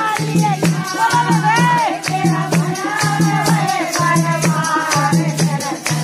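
Devotional bhajan music: a singing voice with gliding, ornamented lines over a steady rattling percussion beat and a pulsing low note.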